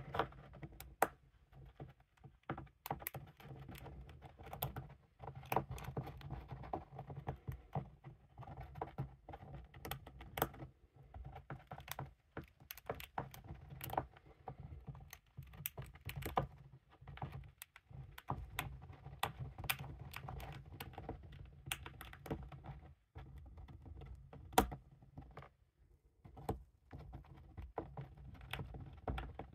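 Hamster gnawing a peanut in its shell: rapid, irregular crunching clicks as its teeth break off bits of shell.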